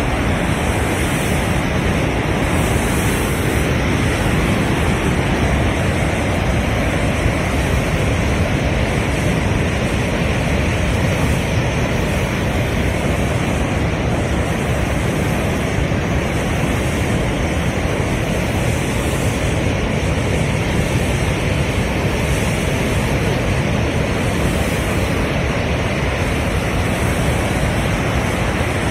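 Floodwater rushing: a muddy river surging in big standing waves below a dam's open spillway gates, which are releasing surplus water. A loud, steady rush of water with no let-up.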